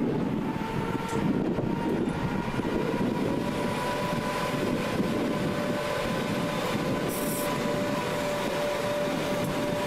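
Class 86 AC electric locomotive moving slowly at close range: a low rumble with a whine that rises in pitch over the first few seconds, then holds steady.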